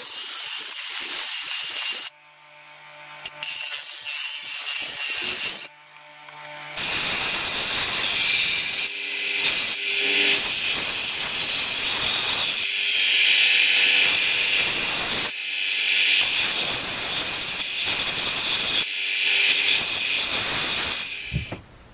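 Bench grinder wheel grinding the steel edge of a rusty cleaver-style knife blade. From about seven seconds in, a belt sander sands the blade face in long passes with short breaks between them, stopping near the end.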